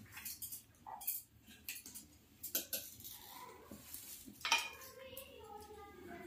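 Cashews being cut into small pieces with a knife over a steel plate: scattered faint sharp clicks of the blade and pieces on the metal, a few of them louder.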